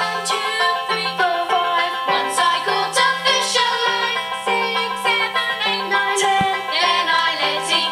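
Children's voices singing a nursery rhyme together over a bouncy instrumental accompaniment with an alternating bass line, played back through a television's speaker.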